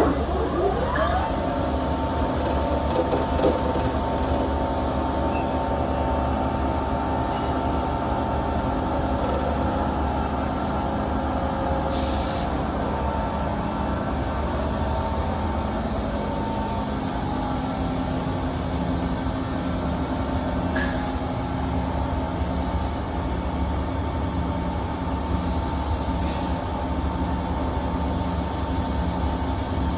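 FEMCO BMC-110 R2 CNC horizontal boring mill running under power: a steady machine hum made of several steady tones, with a short hiss about twelve seconds in and a click a little after twenty seconds.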